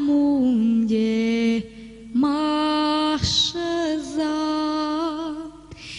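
A woman singing a Maramureș folk song unaccompanied, in long held phrases that slide between notes, with a short break about two seconds in.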